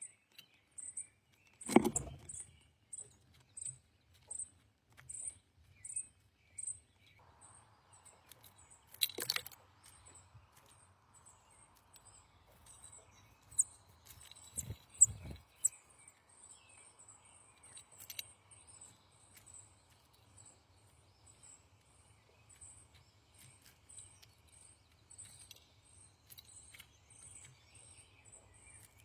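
A small bird's thin, very high chip note, repeated about twice a second and coming faster in the second half. A few sharp knocks stand out, the loudest about two seconds in and another pair about halfway through.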